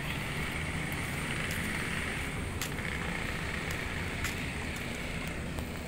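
Steady outdoor city background: a low rumble of distant road traffic under a faint, even high hiss, with a few light ticks.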